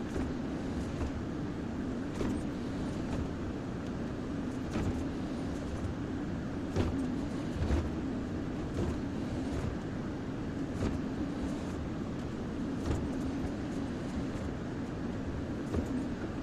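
Kobelco SK-140XM hydraulic excavator running steadily as it works, with a sharp clank or knock every second or two.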